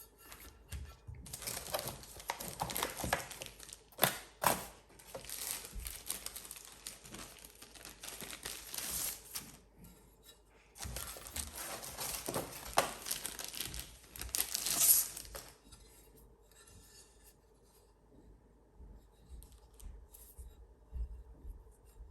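Packaging being handled and torn open, rustling and crinkling in two long stretches, with two sharp knocks about four seconds in and lighter handling noises afterwards.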